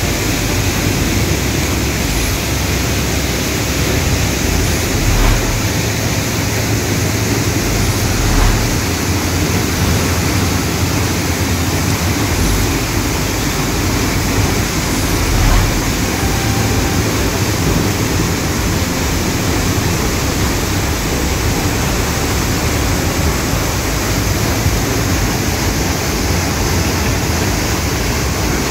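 Loud, steady rush of a large waterfall's falling water, an even noise with no break.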